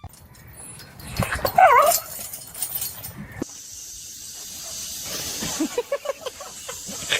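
A dog whining and yipping: a few short, sliding whimpers about a second and a half in, then a quick run of short whines near the end.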